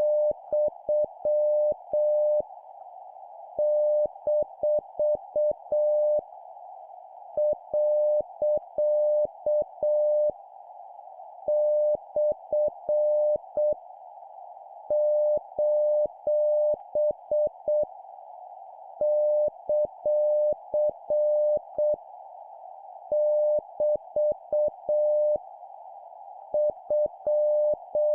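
Morse code at 7 words per minute: a single steady beeping tone keyed in groups of dots and dashes, each group a punctuation character, with pauses of about a second between groups. Under it runs a constant narrow hiss, like a radio receiver's filtered noise.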